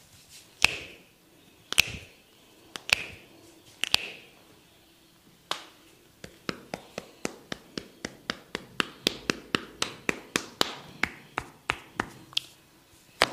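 Sharp percussive massage strikes: five spaced about a second apart, each with a short ring, then after a pause a quick, even run of about four taps a second.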